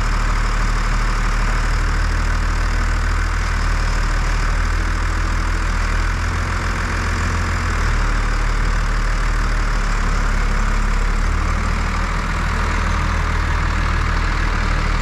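John Deere 3650 tractor's six-cylinder diesel engine idling steadily.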